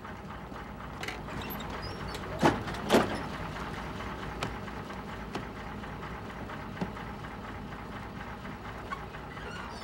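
Bus engine idling steadily. Two loud knocks about half a second apart come around two and a half seconds in, with a few lighter clicks later on.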